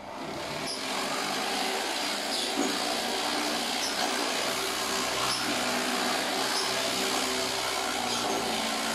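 NRT electric orbital sander switched on, spinning up over about the first second and then running steadily as it sands a plywood panel.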